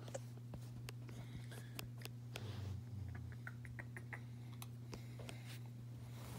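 Faint scattered clicks and light rustles over a steady low hum, with a quick run of small ticks about three seconds in.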